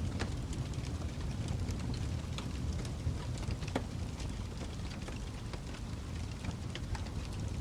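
Wood fire burning: a steady low rumble of flames with scattered sharp crackles and pops, a few louder ones about a quarter second, two and a half and nearly four seconds in.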